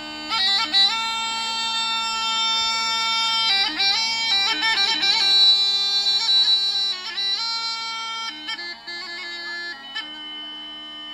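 Bulgarian gaida bagpipe played solo: a steady drone with the chanter coming in just after the start, playing a melody of long held notes broken by quick trills and ornamented runs, softer in the last few seconds.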